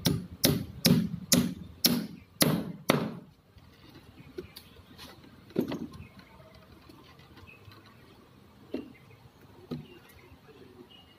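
Hammer striking wooden shuttering boards, seven sharp blows about two a second that stop about three seconds in. Three more single knocks follow later, spaced apart.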